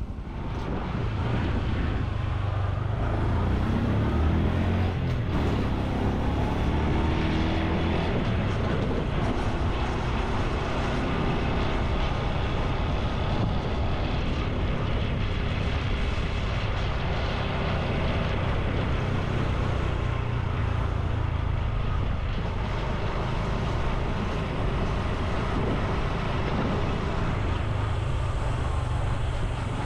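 Honda Super Cub C125's 125 cc single-cylinder four-stroke engine and exhaust running under way, with road and wind noise. The revs rise a few seconds in as it accelerates, then hold fairly steady.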